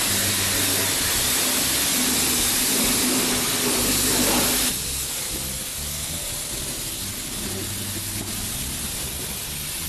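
Self-serve car wash pressure-washer wand spraying a car's wheel and tire: a loud, steady hiss. About four and a half seconds in it drops suddenly to a softer hiss.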